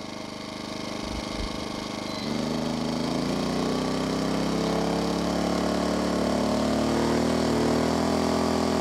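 Firman W2000i inverter generator's engine running slowly at light load. About two seconds in it speeds up and gets louder, its pitch climbing over the next several seconds as a space heater puts roughly 1,500 watts on it.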